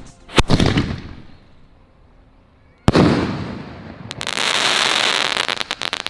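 Sky shot aerial firework going off: a bang about half a second in that fades away, a sharper bang near three seconds, then a dense hissing crackle from about four seconds in.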